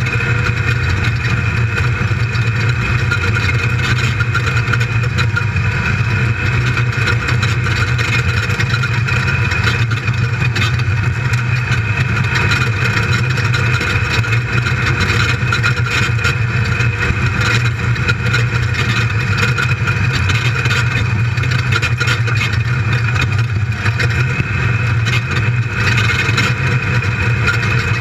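A race buggy's built LS1 V8 running hard under load, heard from inside the open cockpit, with frequent short knocks and rattles throughout as the car drives over rough desert track.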